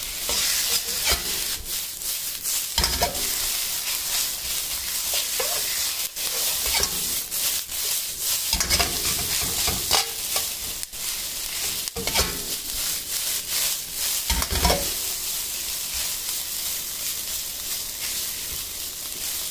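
Fried rice sizzling in an iron wok, stirred and turned with a metal spatula: a steady frying hiss with frequent scrapes and taps of metal on the pan.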